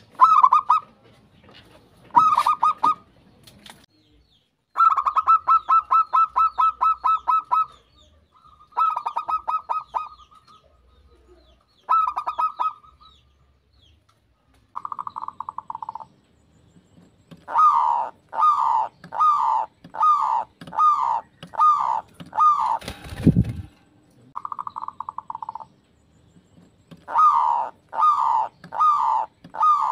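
Zebra doves (perkutut) cooing: repeated phrases of quick rolling coo notes, some drawn out into a fast run of evenly spaced notes, others a string of separate coos about one every three-quarters of a second, with short pauses between phrases. One thump about two-thirds of the way through.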